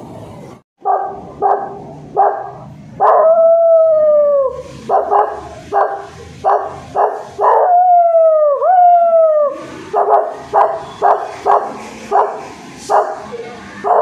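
A child imitating a dog: a run of short barks, about two a second, broken by long howls that slide down in pitch.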